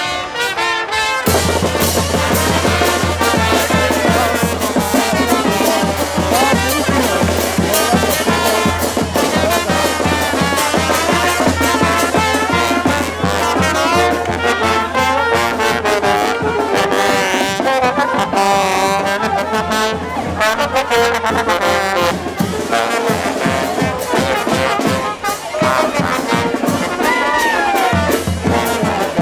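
A charanga street band playing: trombones and other brass with a saxophone over snare and bass drum with cymbal, starting about a second in and keeping an even, lively beat.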